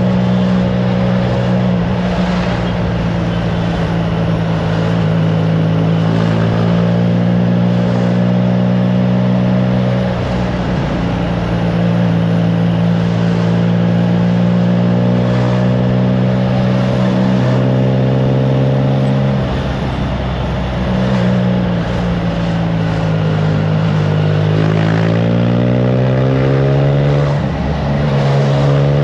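Triumph Trident 660's three-cylinder engine through a FireTong aftermarket exhaust, running at steady revs on the move. The revs dip briefly twice, then climb steadily near the end as the bike accelerates.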